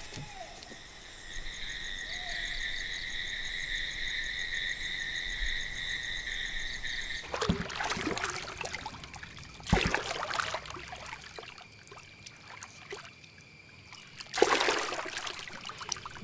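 A steady, high-pitched night chorus stops abruptly about seven seconds in. Then a wooden canoe is poled through still water, with three splashing, trickling paddle strokes spread over the next several seconds.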